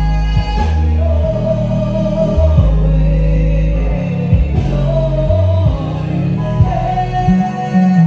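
A woman singing a gospel song into a handheld microphone, amplified through the PA, holding long notes over an instrumental accompaniment with a heavy bass line.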